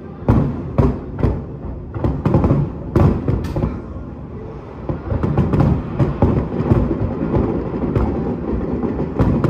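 Aerial fireworks shells bursting: a quick series of sharp booms, each trailing off in a short rumble, then from about halfway a denser, near-continuous barrage of overlapping bursts.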